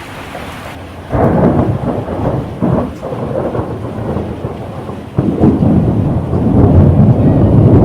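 Thunder rumbling over steady rain: a sudden loud peal about a second in that rolls on and fades, then a second rumble from about five seconds in that builds and grows louder.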